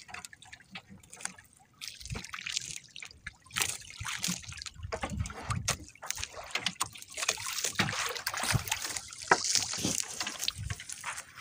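Sea water trickling, sloshing and splashing in irregular bursts, with scattered knocks, as a fishing net is worked in over the side of a small boat.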